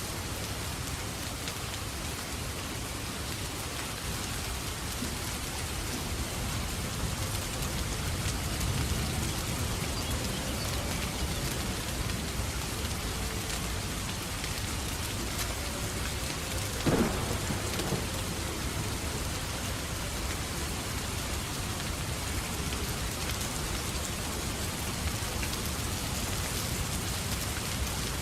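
Steady heavy rain with low rumbling thunder, mixed with the crackle of a wood fire in a fireplace. One louder sharp crack stands out a little past halfway.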